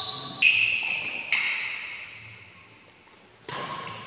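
Sounds of a badminton rally in a large hall: two sharp sounds, about half a second and a second and a quarter in, each trailing a fading ringing squeak, then another sharp hit about three and a half seconds in. These are racket strikes on the shuttlecock and shoe squeaks on the court floor, echoing in the hall.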